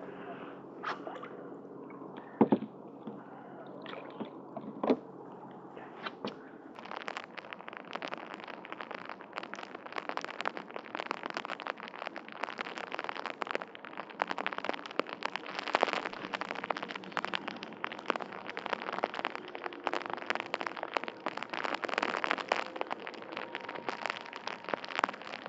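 Rain falling on the water and boat: a dense, steady crackle of drops that sets in about a quarter of the way in and carries on. Before it there is a steady low hum and two sharp knocks.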